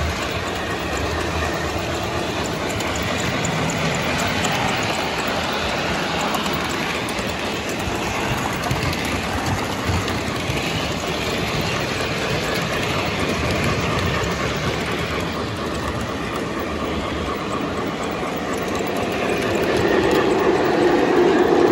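Model trains running on a layout: a steady rumble and clatter of wheels on track, growing louder near the end.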